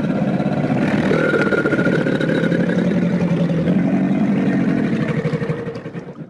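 A crocodile's long, rough growl: one continuous low call of about six seconds that starts abruptly and cuts off sharply.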